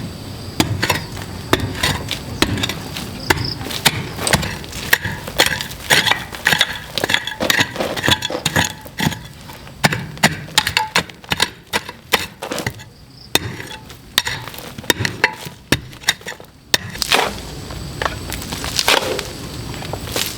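A tool striking wood again and again: sharp, irregular knocks, a few each second, with a brief pause partway through.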